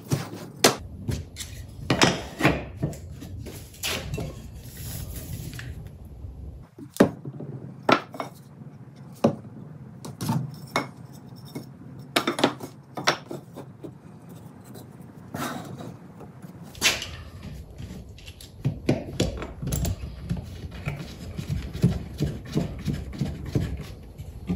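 Wooden pieces (pine frame sticks and plywood corner jigs) being handled and set down on a wooden workbench, giving a series of irregular sharp knocks and clacks. Towards the end a bar clamp is worked around a jig, with quicker clicking.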